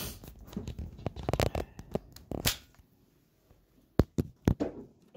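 Handling noise from the recording device being picked up by hand: rubbing and rustling with many small clicks, then, after a short lull, three or four sharp knocks on the device about four seconds in.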